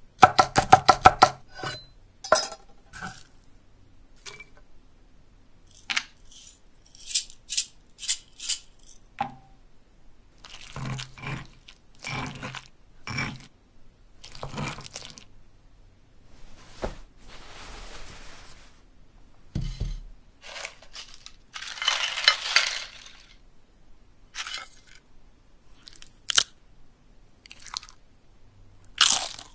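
A string of short stop-motion Foley effects: a quick run of clicks at the start, then scattered crunches, clicks and scraping as a stone pestle works pieces in a molcajete, and a longer crackling burst about three-quarters of the way through.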